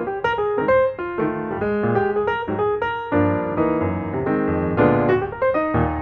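Background piano music: a run of single notes over chords at a steady pace.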